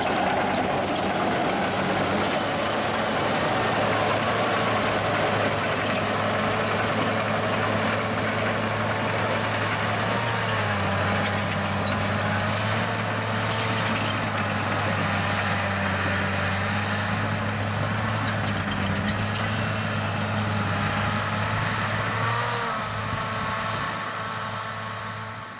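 Caterpillar 963C track loader's diesel engine running steadily under load as the machine pushes dirt; the engine note shifts about ten seconds in and again near the end, and the sound fades out at the very end.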